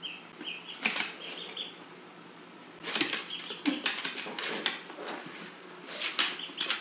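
A duckling peeping in short, faint high chirps, with bursts of scuffling, flapping and claw clicks on a wooden floor about three seconds in and again near the end.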